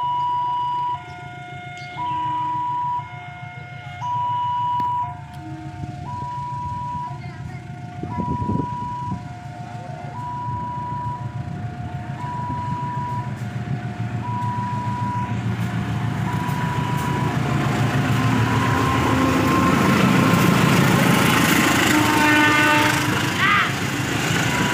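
A two-tone electronic railway crossing alarm sounds, alternating high and low about once a second. Over the second half the rumble of an approaching train grows louder and drowns it out. Near the end there is a brief pitched sound.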